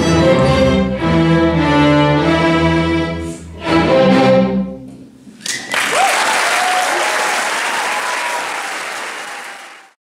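A string orchestra of violins, cellos and double basses plays its closing chords, ending about five seconds in. After a brief hush the audience breaks into applause and cheering, which fades out near the end.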